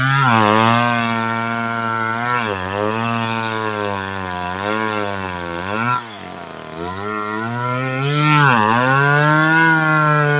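Chainsaw cutting into a large eastern white pine at full throttle. Its engine pitch sags and recovers about four times as the chain bogs down in the cut, with a short easing off the throttle around the middle.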